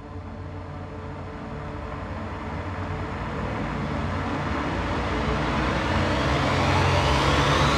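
A low rumble builds steadily louder, and a rising whine joins it about five seconds in.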